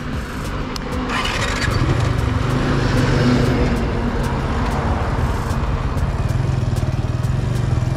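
Motorcycle engine starting up about a second in, then running steadily.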